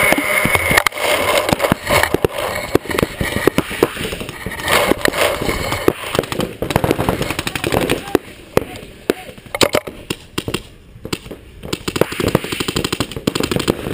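Paintball markers firing in quick strings of sharp pops, with paintballs striking the inflatable bunker; the firing thins out for a few seconds past the middle.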